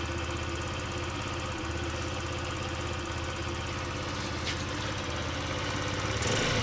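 Scooter engine idling steadily on its warmed-up automatic choke, with a brief rise in revs near the end. The owners suspect the carburettor's accelerator pump is at fault.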